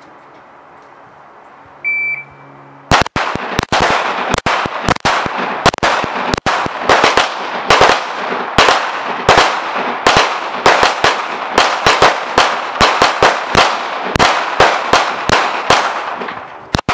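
A short electronic start beep, then about a second later a long string of handgun shots fired at an irregular, quick pace, sometimes two in close succession. The string runs to near the end, dozens of shots in all, with a ringing echo after each.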